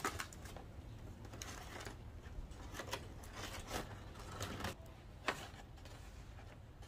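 Aluminum foil crinkling as it is peeled back off a disposable aluminum pan, with scattered faint crackles and clicks as the foil pan is handled on the grill grate; one sharper click about five seconds in.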